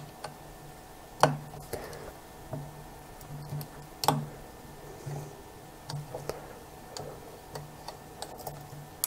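Light clicks and ticks of a tiny precision screwdriver working a small screw out of the metal mount ring of a Sigma 10-20mm lens, with two sharper clicks, about a second in and about four seconds in.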